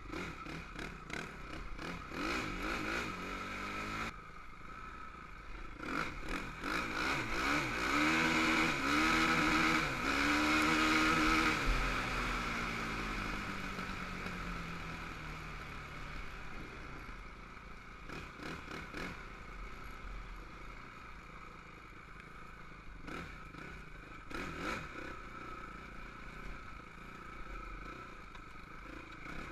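Honda TRX450R quad's single-cylinder four-stroke engine revving up in steps, loudest about eight to twelve seconds in, then easing off and running lower. Rattles and knocks come from the quad bouncing over the rough dirt trail.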